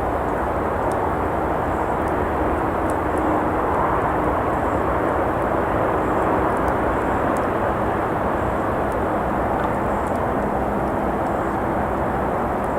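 Steady rush of traffic noise from a nearby road, swelling a little for a few seconds midway, with a few faint crackles from a campfire.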